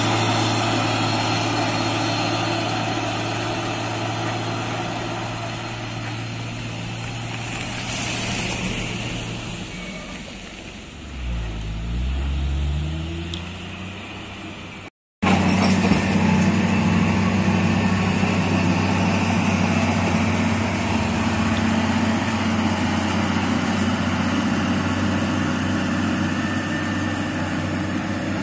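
Diesel engines of heavily loaded log trucks running on a dirt road: one truck passes close and its engine fades away, with a short hiss about eight seconds in and an engine note that dips and climbs again around the middle. After a sudden cut, another truck's engine runs steadily and louder as it approaches.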